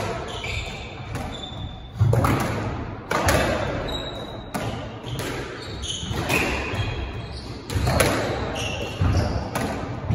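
A squash rally: the ball cracks off racquets and the court walls about every second or so, each hit ringing in the enclosed court. Between the shots, court shoes squeak briefly on the wooden floor.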